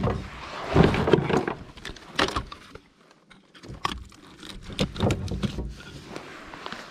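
Scattered knocks, clicks and clatter of hands, pliers and tackle on a plastic fishing kayak while a small sea trout is being unhooked.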